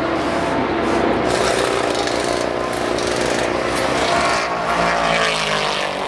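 Race car engines running at speed on the circuit, their pitch gliding as cars go by, mixed with the rattle of air impact wrenches from a tyre-changing pit stop.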